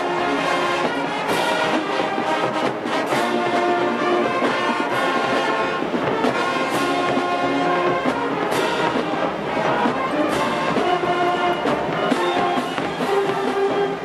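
Marching band playing, led by a loud brass section holding full chords that change every second or so, over drum and cymbal strikes.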